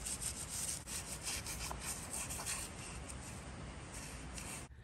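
Brushes scrubbing the grimy metal EGR valve and housing from a Cummins diesel, wet with degreaser, in quick back-and-forth strokes that grow softer over the last couple of seconds.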